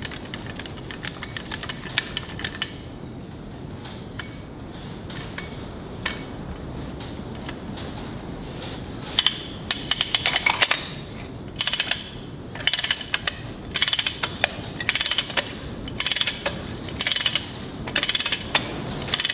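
Long-handled ratchet wrench clicking as it runs the outer spindle nut onto a truck steer-axle spindle. Faint light clicks at first, then from about nine seconds in a steady run of ratchet strokes, roughly one a second, each a quick burst of pawl clicks.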